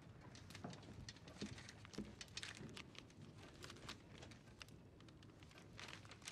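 Faint, irregular crackling and rustling of a paper letter being handled and unfolded.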